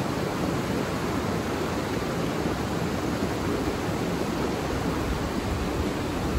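Steady rushing of a rocky mountain river pouring over boulders and small rapids.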